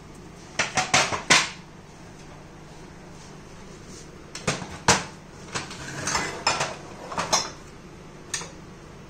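Spoons and small bowls clinking and knocking against each other and the kitchen counter. There is a quick run of clinks about half a second in, a longer run of clinks and knocks in the middle, and a single knock near the end.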